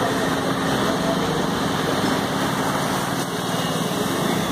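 A small engine running steadily, as a vehicle pushes through floodwater.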